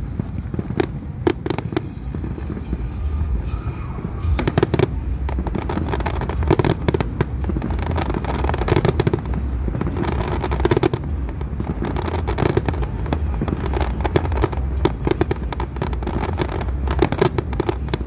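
Fireworks display: a rapid, unbroken string of bangs and crackles, thickening into a near-continuous barrage about four seconds in.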